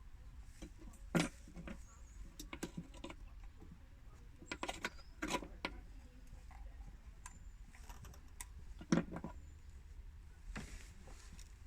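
Small, irregular metallic clicks and scrapes of a thin metal kebab skewer picking at an old O-ring stuck in a transfer pipe port, with the sharpest clicks about a second in and about nine seconds in.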